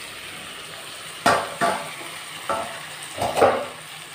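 Sliced snake gourd and potato frying in a steel kadai on a gas flame, with a steady sizzle. A few sharp scrapes and clinks of a metal spatula stirring against the pan come through it.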